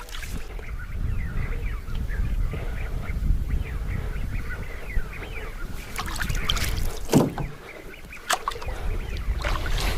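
Waterfowl calling, many short calls, over a steady low rumble of wind and water around a small boat. A few sharp knocks come in the second half.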